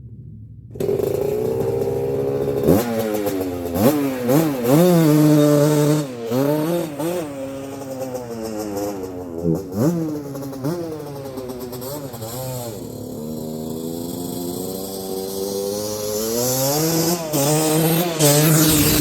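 1981 Suzuki RM125X's freshly rebuilt single-cylinder two-stroke engine, bored 2 mm over, revving hard as the bike is ridden. It comes in suddenly about a second in, and its pitch climbs and drops again and again with throttle and gear changes. It grows fainter in the middle and louder again near the end.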